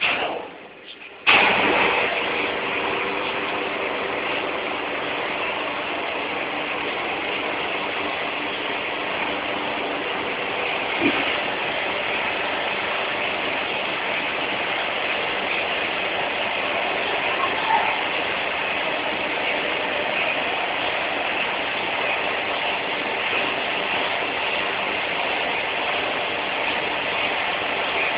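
Loud, steady industrial machinery noise, a dense hiss with a faint steady hum, starting abruptly about a second in.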